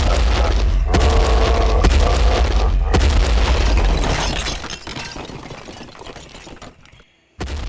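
A loud boom with a deep rumble that holds for about four seconds and then fades away; a second burst starts just before the end.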